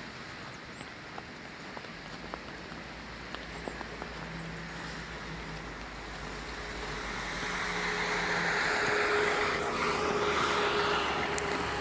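A car driving by on a snow-covered street: its tyre and engine noise swells about halfway through and is loudest near the end, over a steady hiss of street noise.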